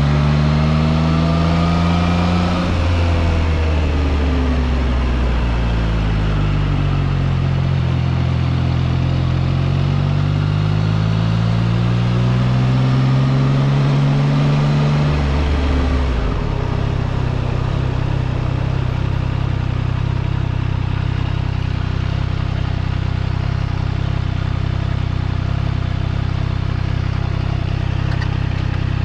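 2021 Triumph Trident 660's three-cylinder engine revving up and rolling off twice as the bike rides along. About halfway through the revs drop and the engine settles into a steady idle as the bike comes to a stop.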